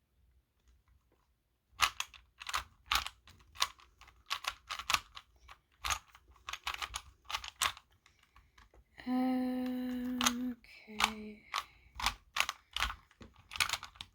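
Rubik's brand 3x3 cube being turned by hand: a run of quick plastic clicks and clacks as its layers are twisted, starting about two seconds in. About nine seconds in, a person hums one held note and then a shorter, lower one.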